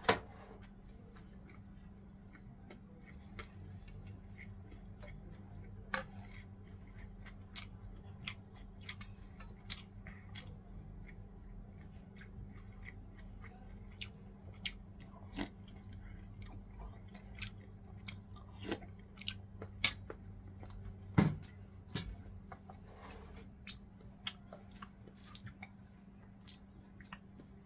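A person chewing food, with scattered small clicks and taps throughout and one louder click about two-thirds of the way in, over a steady low hum.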